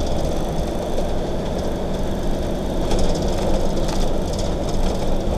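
Camping-car engine and road noise heard from inside the cab while driving, steady throughout.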